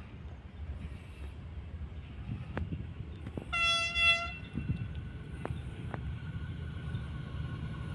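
Diesel-electric freight locomotive (CSR 5113) sounding one short horn blast, a single steady note lasting under a second, about halfway through. The low rumble of the approaching train runs underneath, with a few faint clicks.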